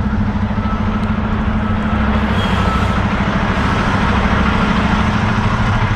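Semi truck's diesel engine running steadily. The surrounding noise swells a little from about two seconds in.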